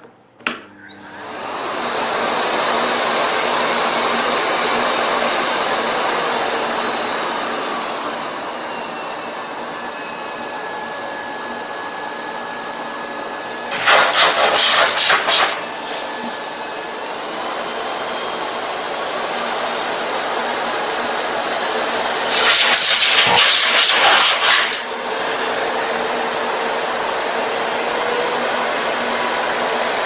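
Canister vacuum cleaner switched on with a click and spinning up to a steady running rush. Its level dips and rises a little, and twice it turns louder and rougher for a second or two.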